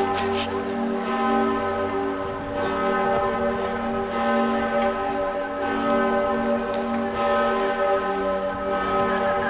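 Pretiosa, the great bronze bell of Cologne Cathedral, ringing full-circle. Its clapper strikes about every one and a half seconds, each stroke ringing on with a deep hum and a cluster of long-held overtones that overlap into the next.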